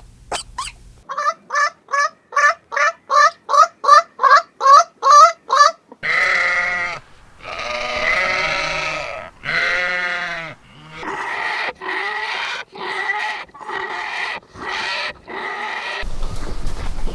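A quick run of short, evenly spaced animal calls, about three a second, then goats bleating over and over in long wavering calls, each about a second long.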